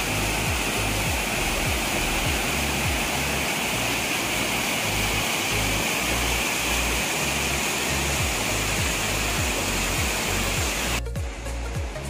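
Waterfall rushing and splashing over rock, a dense steady hiss, with background music whose bass notes repeat in a steady pattern underneath. About a second before the end the water noise cuts off suddenly and only the music is left.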